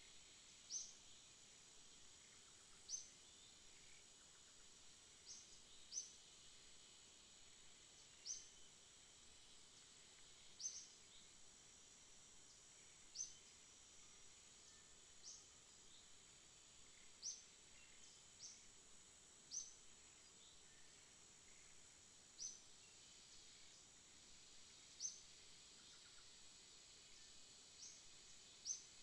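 Faint dawn ambience: a short, high chirp repeated at uneven gaps of one to three seconds, over a steady faint high hiss.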